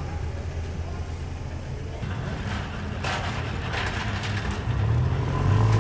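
City street traffic: a road vehicle's engine running close by, louder in the last second or so, over a steady low rumble of traffic.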